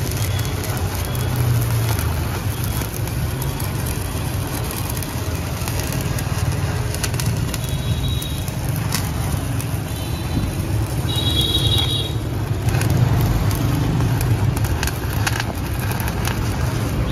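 Stick-welding arc from a Classic ZX7-200CL inverter welder crackling and sizzling steadily as the electrode burns along a steel bar, with a low hum underneath.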